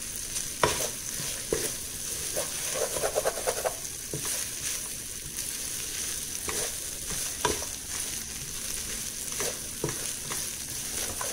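Dried-tuna fried rice sizzling in a wok while a wooden spatula stirs and scrapes it, with irregular knocks of the spatula against the pan and a short raspy scrape about three seconds in.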